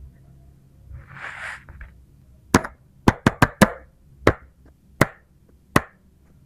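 A brief soft scrape or rustle, then eight sharp plastic clicks and taps of small toy pieces, four of them in a quick run near the middle.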